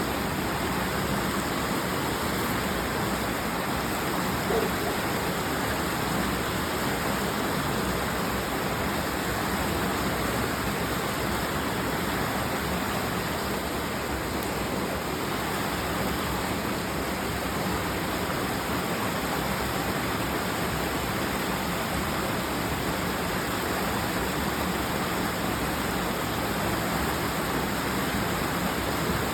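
Creek water rushing steadily, a constant close-up wash of running water from the falls.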